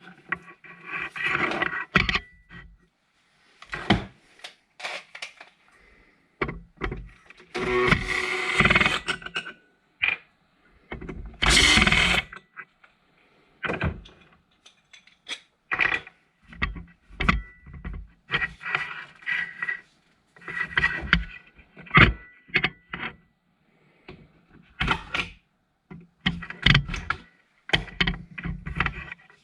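Tools working on a submersible water pump during disassembly: a run of irregular clanks, clicks and knocks, with two longer stretches of scraping or grinding about eight and eleven seconds in.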